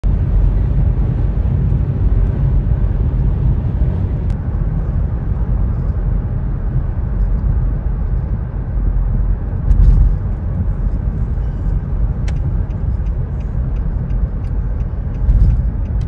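Steady road and tyre rumble inside a moving car's cabin at highway speed, with a few light clicks scattered through.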